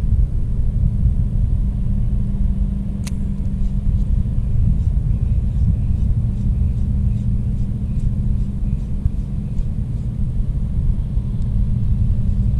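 Low, steady machine rumble with a constant hum, like a large engine running. A sharp click comes about three seconds in, then a run of faint, even ticks.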